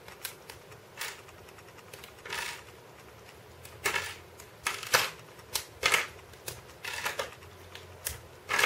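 LEGO Technic plastic pieces clicking and clattering in the hands as the cube is taken apart, in a dozen or so irregular sharp clicks.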